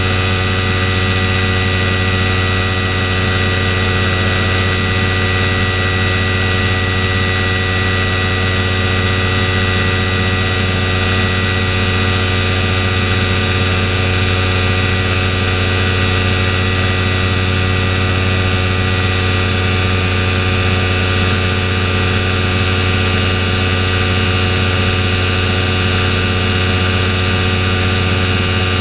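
Paramotor engine and propeller running steadily at a constant throttle, a loud, even drone with an unchanging pitch.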